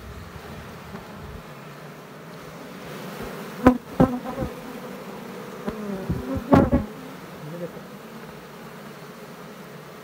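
A colony of Asian honey bees (Apis cerana) humming steadily on an opened comb. A few loud knocks and close buzzes come about four and six and a half seconds in.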